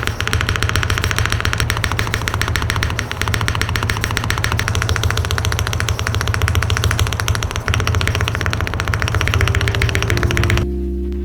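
Mechanical keyboard spacebar pressed rapidly and repeatedly: a dense run of clicks, many a second. Piano music cuts in near the end.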